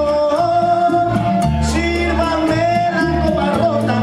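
Latin American music played loud: a male singer on a microphone holds long notes over an accompaniment with a stepping bass line.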